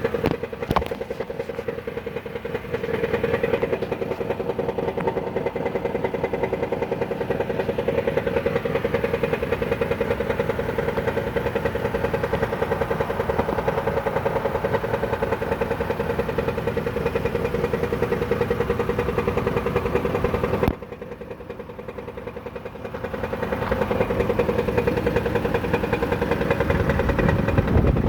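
2014 Dodge Caravan engine idling with a rapid metallic clattering from a badly cracked flexplate. About twenty seconds in it suddenly goes quieter, then builds back up over the next couple of seconds.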